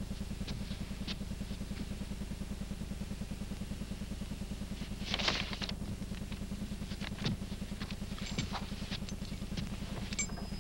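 Vehicle engine idling with a steady, rapid low pulse. A few light clicks and a short rustling burst about five seconds in are heard over it.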